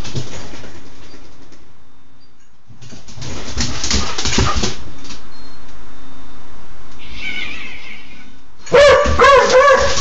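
Six-month-old puppy barking in alarm at an unfamiliar noise: a run of loud, wavering barks near the end, after a brief high whine. Clattering in the first half.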